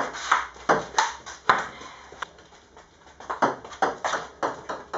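Table tennis ball clicking off bats and table in a rally: a quick run of sharp hits, a pause of about a second, then more hits.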